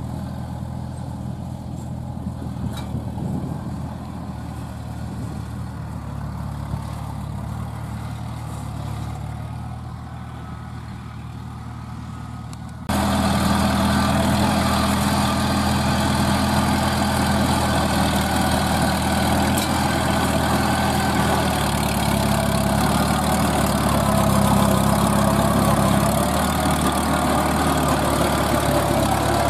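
Engine of a crawler-track rotary tiller running steadily under load as it tills a dry field. About halfway through the sound suddenly becomes much louder and closer.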